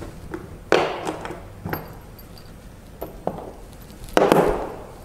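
Scattered metallic clinks and knocks of bolts and tools being picked up and handled, with a louder rattling clatter about four seconds in.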